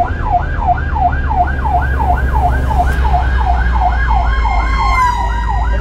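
Ambulance siren in a fast yelp, its pitch sweeping up and down about four times a second, heard from inside a moving vehicle's cab over a low engine rumble.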